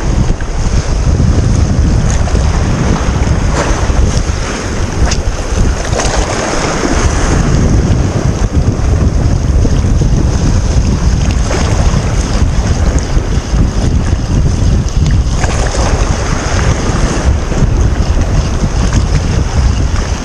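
Wind buffeting the microphone in a steady loud rumble, over waves washing against the shore.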